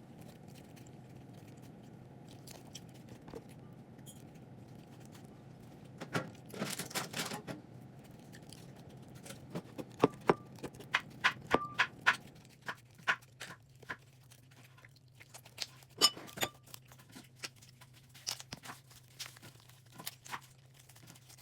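Butter slime (glue slime with modelling clay) being kneaded and stretched by hand, giving scattered sticky clicks, crackles and small pops, with a run of quick clicks between ten and twelve seconds in. A steady low hum runs underneath.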